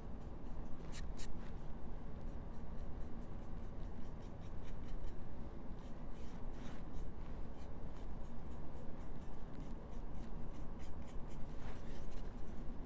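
Stiff, nearly dry paintbrush scraping along the edge of a laser-cut cutout in many quick, short scratchy strokes, a few a second, while dry-brush shading is applied.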